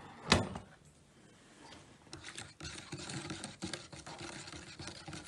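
A single sharp knock just after the start. Then, from about two seconds in, a plastic stirrer scrapes and ticks quickly inside a paper cup of hot hibiscus tea as sugar is stirred in.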